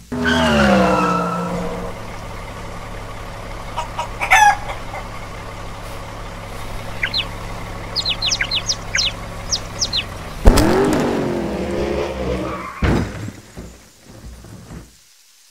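Cartoon sound effects: a car engine idles as a low steady hum for about ten seconds, with a falling pitched sound at the start and short high chirps near eight seconds. About ten and a half seconds in, a loud hit is followed by a rooster's bending call.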